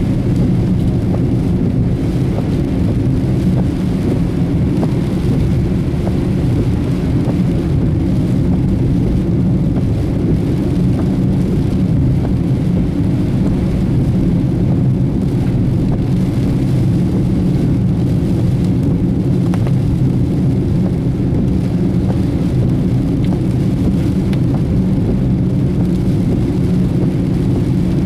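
Steady low rumble of a car being driven, engine and tyre noise together, with no marked change in speed.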